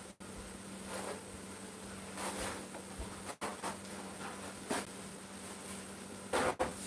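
Hot water cornbread patties frying in oil in a cast iron skillet, a steady faint sizzle. A few short rustles come and go, the last near the end as a roll of paper towels is handled.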